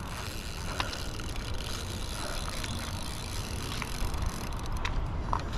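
Spinning reel being cranked to bring in a hooked fish, its gears whirring with faint ticks, over low wind rumble on the microphone.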